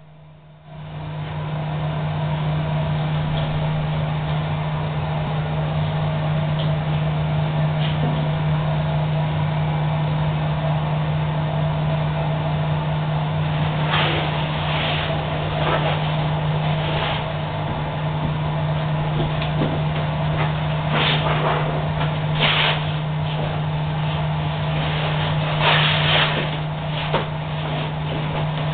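High-frequency plastics welding machine running with a steady low electrical hum, with several short bursts of hiss in the second half.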